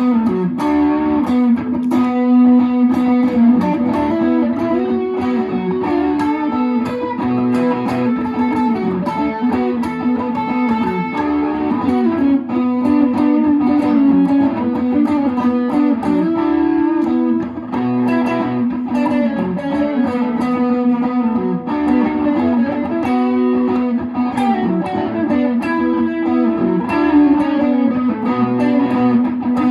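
Electric guitar playing continuously, a picked line of single notes and ringing chords that changes pitch every second or so.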